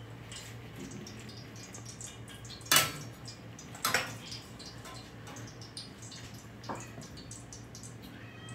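Kitchenware clinking: three short sharp knocks, the loudest a little under three seconds in and the faintest near the end, over a low steady hum.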